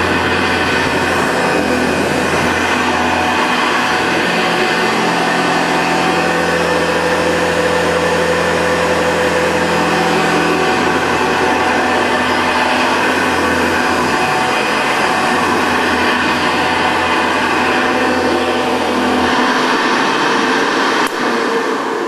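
Mid-1950s Hoover Model 634 upright vacuum cleaner running steadily, its motor and brush roll working over carpet. Near the end there is a click and the motor winds down.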